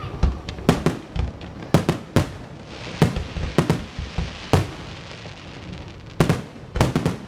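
Fireworks going off: about a dozen sharp bangs at irregular intervals, with a faint hiss between them.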